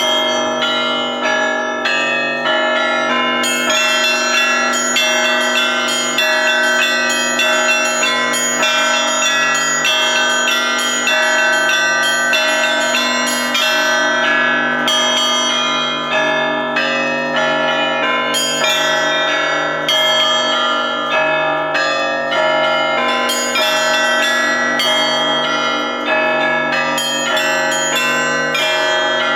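A peal of Russian Orthodox church bells: the smaller bells are struck in a quick, continuous pattern over the long, sustained ring of the larger bells, with many ringing tones overlapping.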